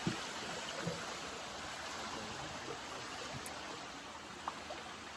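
Water running steadily from a small waterfall, a continuous rush that fades a little toward the end.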